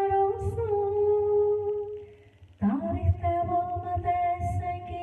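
A woman singing a Turkish song into a microphone: she holds a long note that dies away about two seconds in, then after a brief near-silent gap comes in on a new note that slides up from below and is held.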